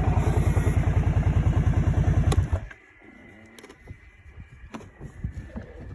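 Vehicle engine idling with an even low pulse, switched off about two and a half seconds in; a few faint clicks and knocks follow.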